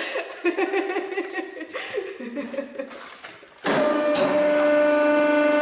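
A person chuckling, then about three and a half seconds in a hydraulic press's pump starts suddenly and runs with a steady whine as the ram descends.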